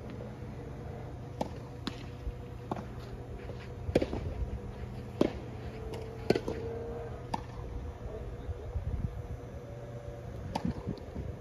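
Tennis ball being hit by rackets and bouncing on the court during a rally: a string of sharp pops and knocks every second or so, loudest around four to six and a half seconds in, over a steady low hum.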